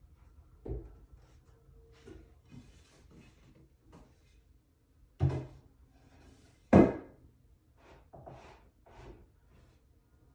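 Pine shelf boards knocking and clunking as they are handled on the shelf frame, with two loud knocks about five and seven seconds in and lighter taps between.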